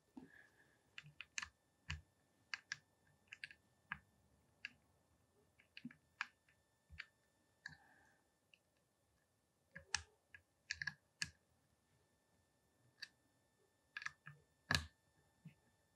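Small metallic clicks and taps, faint and irregular, as hex keys are fitted into and turned in the screws on both sides of a tripod leg's pivot. The clicks come in a cluster about ten to eleven seconds in, and the loudest comes near the end.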